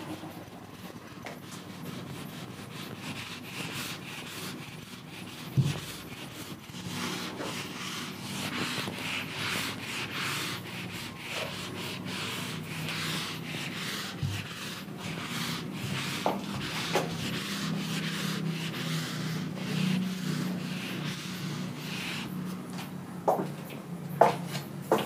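Whiteboard duster rubbed back and forth over a whiteboard, wiping off marker writing in repeated scrubbing strokes. A few sharp knocks fall among the strokes, two of them near the end.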